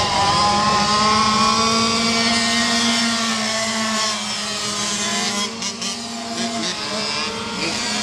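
Small youth dirt-bike engine running at high revs as the bike laps a dirt flat-track oval, its pitch steady with a slight sag over the first few seconds.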